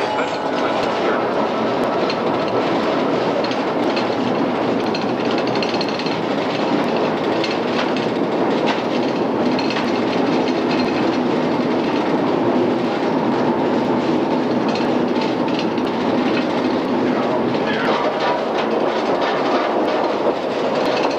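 Streetcar No. 23 running on its track, heard from inside the wooden passenger car: a steady noise of wheels rolling on the rails, with scattered clicks and rattles throughout.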